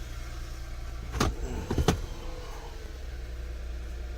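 A 2006 Lexus GS300's 3.0-litre V6 idling steadily, with two sharp clicks a little over a second in and again near the two-second mark.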